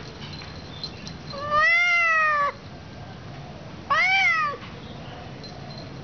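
Orange tabby cat meowing twice: a longer meow that rises and falls about a second and a half in, then a shorter one about four seconds in.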